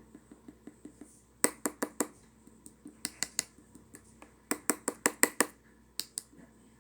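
Slime being squeezed and pressed by hand, giving quick runs of sharp clicking pops in four bursts, with softer small clicks in the first second.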